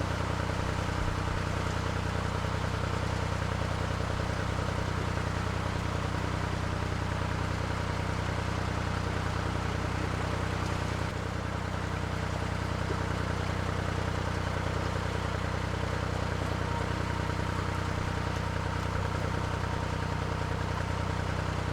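Narrowboat engine running steadily at cruising speed, a constant low hum with no change in revs.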